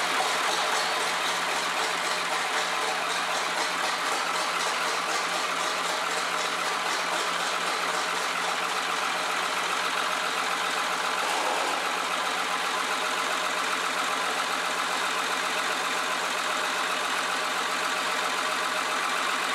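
Fiat-Allis wheel loader's diesel engine idling steadily, just after being started.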